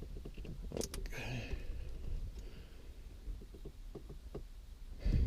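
Small clicks and a brief scrape from hands working a fuse out of its holder, followed by a few lighter clicks and a thump near the end.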